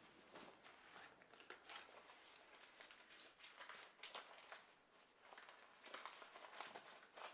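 Near silence: faint rustling of clothing and bedding with a few soft shuffles and small knocks as a man leans over someone lying on a cot.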